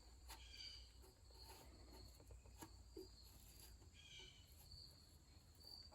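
Near silence: a faint background with soft, high, short chirps recurring every second or so and a few faint clicks.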